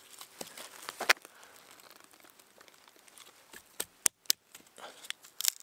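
Fatwood cracking and snapping as pieces are split off. There are a few sharp cracks, the loudest about a second in, then a quick cluster of snaps near the end.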